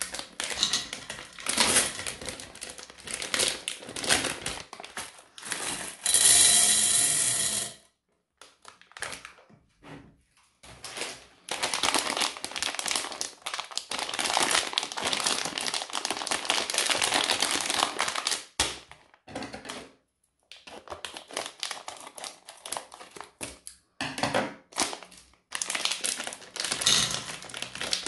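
Plastic candy wrappers crinkling and being torn open, and small hard-shelled candies rattling and clicking as they pour into a sectioned serving platter. There is a loud sustained rasp about six seconds in, and a long dense run of clicking from about eleven to eighteen seconds.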